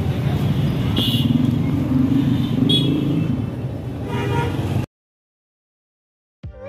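Busy street traffic: vehicle engines running with short horn toots about a second in and again near three seconds. The sound cuts off suddenly, and music starts near the end.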